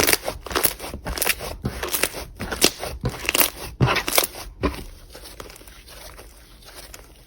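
Slime being handled by hand, with a quick run of sharp crackling clicks and pops that dies down to quieter squishing after about five seconds.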